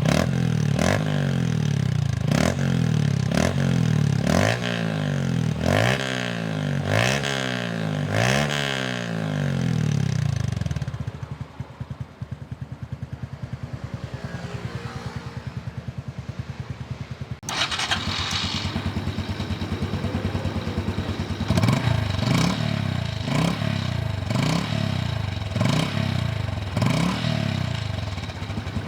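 Honda CT125's single-cylinder four-stroke engine running through an aftermarket full exhaust system, blipped in a series of quick revs and then settling to idle. After an abrupt change about seventeen seconds in, it is revved again in a string of short blips.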